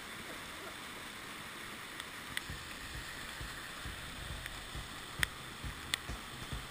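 Steady rush of fast, muddy floodwater, with scattered knocks and low thumps from about two seconds in, the sharpest near the end.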